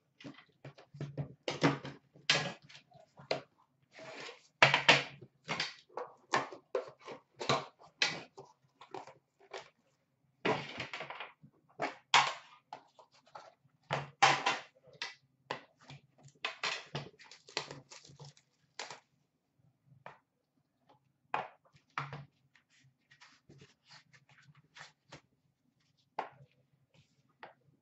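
A sealed trading-card box being unwrapped and opened by hand: plastic wrapping crinkles and cardboard lids rustle, scrape and tap. The handling is busy at first and thins to a few scattered taps near the end.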